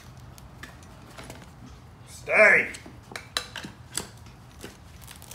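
Metal tire spoons clinking and knocking against a spoked motorcycle rim while the last section of a knobby rear tire's bead is forced onto the rim by hand. There are scattered sharp clicks, and a loud knock right at the end.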